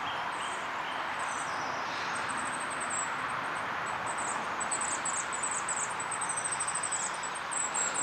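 Small birds singing in rapid series of high, thin, descending chirps, getting busier from about three seconds in, over a steady rural outdoor hiss.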